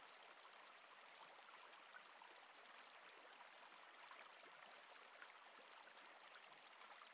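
Faint, steady flowing stream water, an even rushing wash without breaks.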